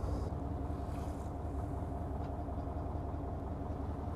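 A fishing boat's engine idling with a steady, even low hum.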